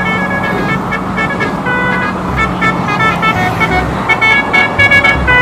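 Road traffic noise, a steady dense rumble, with a string of short horn toots at several different pitches.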